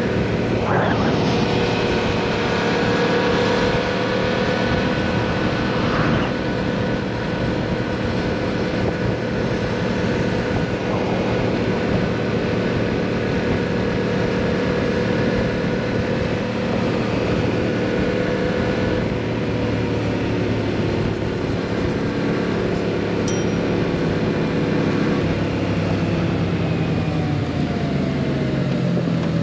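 Yamaha MT-07 parallel-twin engine running at a fairly steady cruise on the move, its note dropping near the end.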